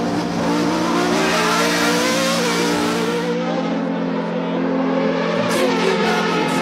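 Formula One car engine at high revs, heard onboard, its note rising and falling. About three and a half seconds in the sound changes to a duller car engine note.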